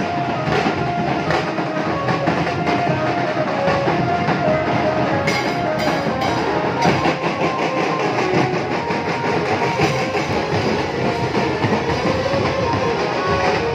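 Loud music with drums and a steady beat, played through horn loudspeakers.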